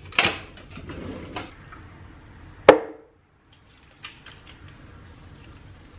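Skincare containers being handled: small clicks and taps, and one sharp knock about halfway through as something hard is set down, ringing briefly.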